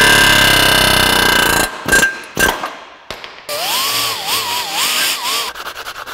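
A hand-held power tool running hard against the steel bore of a lower control arm held in a vise, loud for about a second and a half and then stopping, followed by a few sharp knocks.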